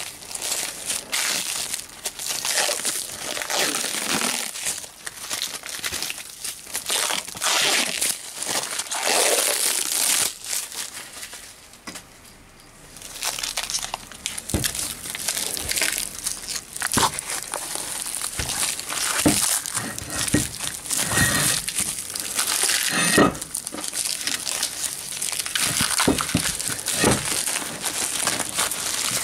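Clear plastic wrap and bubble wrap being pulled, torn and crumpled by hand: continuous irregular crinkling and crackling, with a short lull about twelve seconds in and a few sharp clicks later on.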